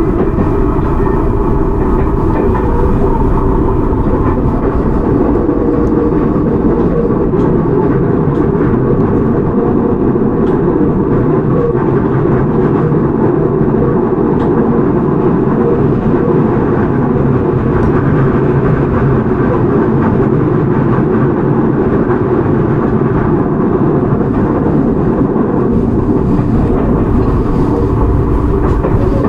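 Interior running sound of a Toei 6300 series subway car with Hitachi GTO-VVVF control, travelling steadily between stations: a dense rumble of wheels on rail with a few steady tones over it and scattered rail-joint clicks. The low rumble grows heavier near the end.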